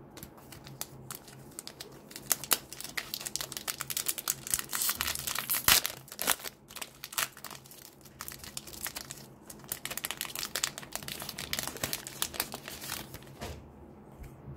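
Foil wrapper of a trading card pack crinkling and tearing as it is opened by hand: a dense, crackly rustle that grows loudest a few seconds in, with one sharp crack, then thins out near the end.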